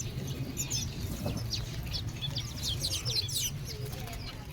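Many small caged birds chirping with rapid, short, high calls, over a steady low rumble of background noise.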